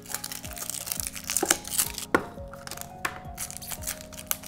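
Plastic toy wrapping crinkling and tearing as it is pulled off a blind-box cube by hand, in quick irregular rustles, over background music with held notes.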